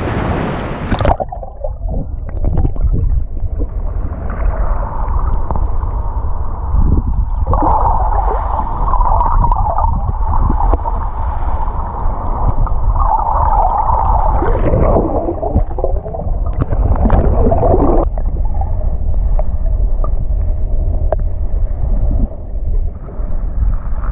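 Shallow surf heard from a camera underwater: a steady low rumble of surge with muffled gurgling of moving water. It begins with a brief splashy hiss, and the gurgling thins out about three-quarters of the way in.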